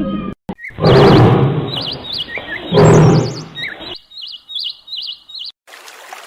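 A small bird chirping in short, warbling notes. Two loud, rough sounds come about a second and three seconds in, and a soft hiss follows near the end.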